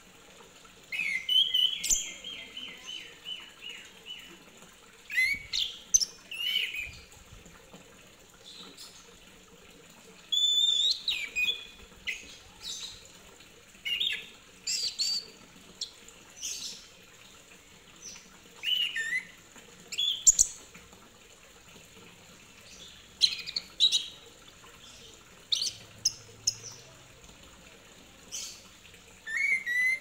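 Caged chestnut-capped thrush (anis kembang) singing: short whistled and chattering phrases every second or two, opening with a fast run of repeated notes about a second in.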